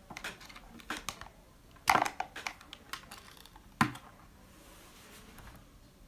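Objects being handled on a tabletop, as a charging cable is pulled away from a mug and a phone. There is a run of light clicks and taps, with two sharper knocks about two and four seconds in.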